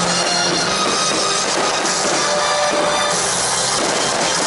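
Rock-style music with drums at a steady loudness.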